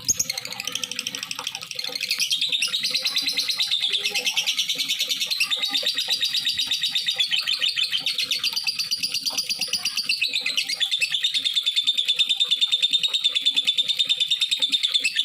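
Lovebird singing a long, unbroken, rapid chattering trill, the continuous 'gacor' song used to set other lovebirds singing. It starts abruptly and grows louder about two seconds in.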